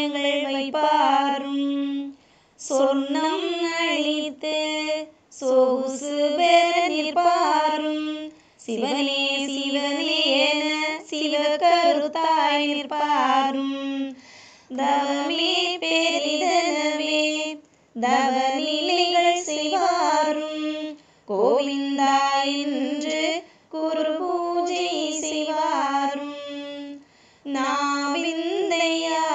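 A high female voice singing a Tamil devotional song, unaccompanied or nearly so. Each phrase lasts about three seconds and ends on a held note, with a short pause for breath before the next.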